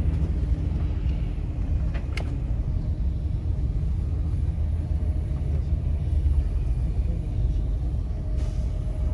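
Low, steady rumble of a vehicle driving across the airport apron, heard from inside its cabin, with one short sharp squeak about two seconds in.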